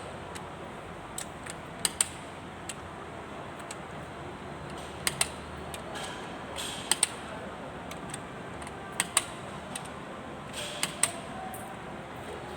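Sharp, clicking strokes of a hand tool on metal, coming in close pairs about every two seconds over a steady workshop background.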